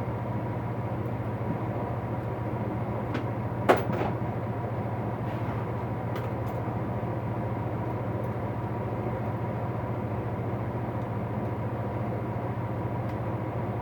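Steady low hum, with a few light clicks and knocks of things being handled while a tool box is sorted; the sharpest knock comes about four seconds in.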